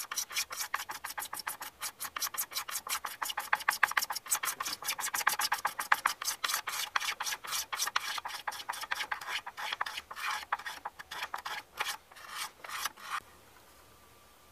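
Steel cabinet scraper worked by hand across the inside of a wooden bowl in quick, short strokes, about five a second, each a dry rasping scrape as the burr hook cuts fine shavings and dust. The strokes stop about 13 seconds in.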